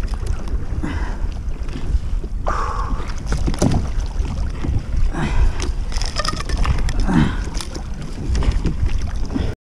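Wind buffeting a kayak-mounted action camera's microphone with a heavy low rumble, over water splashing and slapping against the kayak's hull. The sound cuts off abruptly near the end.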